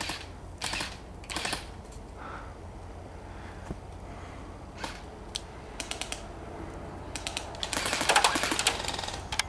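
Airsoft guns firing in short bursts of rapid pops. There are two bursts near the start, a few single shots in the middle, and a longer, loudest burst near the end.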